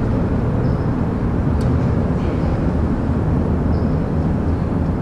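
Steady low rumbling wind buffeting on the camera's microphone, with a faint tick about a second and a half in.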